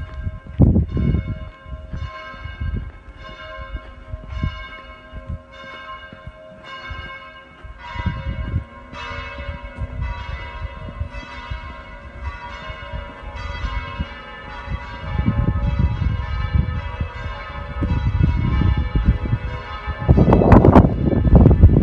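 Church bells ringing, a new stroke about every two-thirds of a second, each ringing on into the next. Wind rumbles on the microphone, loudest near the end.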